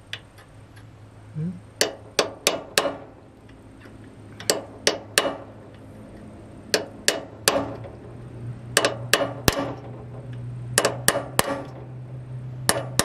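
A hammer striking a steel centre punch set on a broken steel stud: sharp metal taps in quick groups of about three, a group every two seconds or so. The punch is making a starting dimple so the stud can be drilled out.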